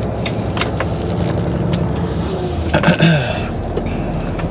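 Lorry's diesel engine running steadily, heard from inside the cab, with scattered light clicks. A brief louder sound with a falling pitch about three seconds in.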